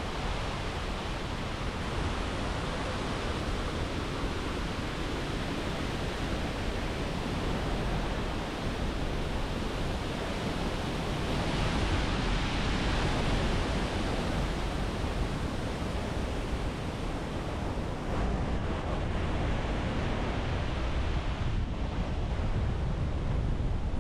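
Waterfall rushing: a steady, dense roar of falling water, swelling a little about halfway through.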